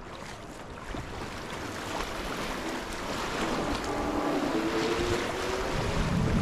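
Rushing whitewater growing steadily louder as a paddled inflatable boat is carried into a river rapid. Music fades in from about four seconds in.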